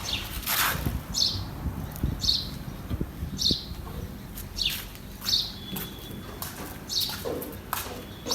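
A bird chirping repeatedly: short, high, downward-sliding chirps about once a second, with a few faint knocks in between.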